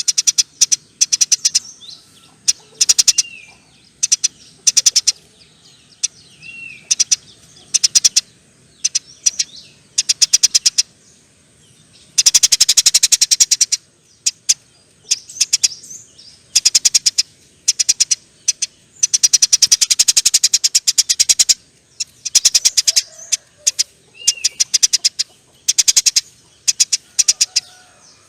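Eurasian tree sparrows chattering in runs of rapid, high chirps broken by short pauses. There are two longer bursts of fast chatter, one a little before the middle and one about two-thirds of the way through.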